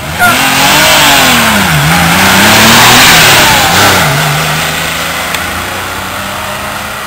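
Porsche 911's air-cooled flat-six launched hard from a standing start, its revs climbing and dropping back at two upshifts about two and four seconds in. It then settles to a steady note that fades as the car pulls away.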